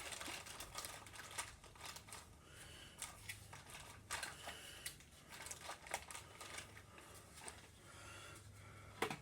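Faint, irregular small plastic clicks and rustling as foam darts are handled and pushed into a small Nerf blaster, with one sharper click near the end.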